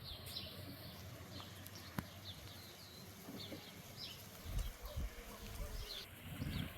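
Small birds chirping over and over in short high notes, with low gusts of wind buffeting the microphone now and then and one sharp click about two seconds in.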